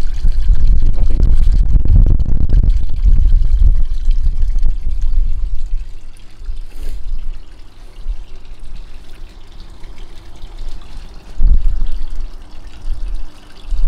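Water trickling and pouring into a garden koi pond, a steady splashing wash. Heavy low rumbling on the microphone fills the first few seconds and returns briefly near the end.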